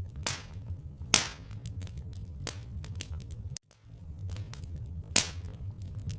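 Wood fire crackling, with irregular sharp pops over a steady low rumble. The sound cuts out briefly a little past halfway, then comes back.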